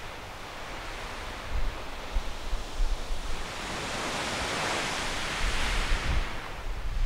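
Sea swell surging against the base of a limestone sea arch and washing back: a rush of water that builds about three seconds in, peaks, and falls away near the end.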